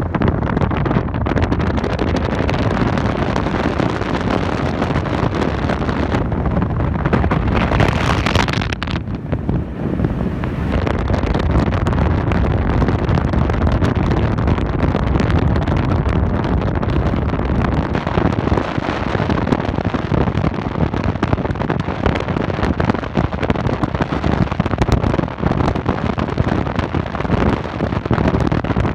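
Wind buffeting the microphone: a loud, steady, rough rumble with crackle through it, with a brief brighter rush of air about eight seconds in.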